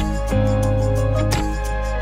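Background music: held instrumental chords over a steady beat, with a strong hit about every second and a half.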